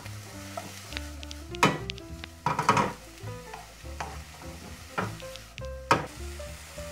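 Chopped vegetables sizzling in an oiled frying pan over high heat while a wooden spatula stirs and scrapes them, with a few louder scrapes. Background music plays underneath.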